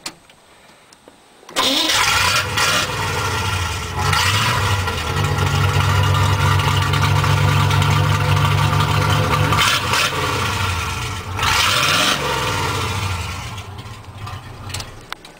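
GMC truck's 350 small-block V8 starting about a second and a half in, then revved: it is held at high revs for several seconds, blipped twice, and drops back toward idle near the end. The exhaust runs without the muffler, which is off for repair after it exploded from a faulty carburettor.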